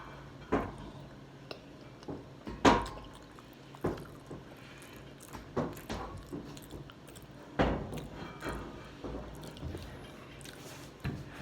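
Close-miked eating: wet chewing and mouth sounds with scattered sharp clicks at uneven spacing, a few of them louder.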